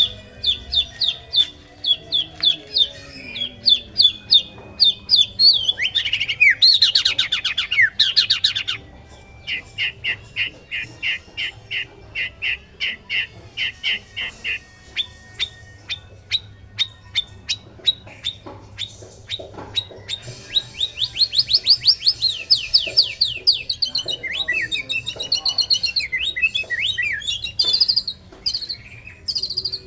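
Male white-rumped shama (murai batu) in full song: a long, varied run of rapid repeated whistled notes and fast sweeping trills, with a quieter stretch of short clicks and chips in the middle.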